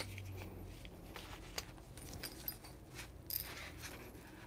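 Faint scattered clicks and light metallic taps of a screwdriver working the screws of a coffee grinder's metal burr carrier, with a brief rustle about three seconds in as the carrier is handled.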